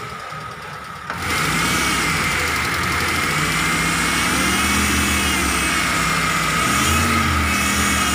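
Suzuki Carry Futura T120SS engine running with the revs rising and falling, carrying a high, steady flute-like whistle that gets louder about a second in. The whistle comes from the oil pump pickup pressed against a dented-in oil pan, sounding as the pump sucks up oil.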